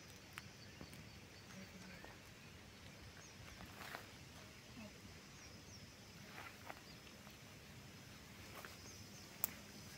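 Quiet outdoor ambience with faint, scattered bird chirps and a few soft clicks, then one sharp click near the end.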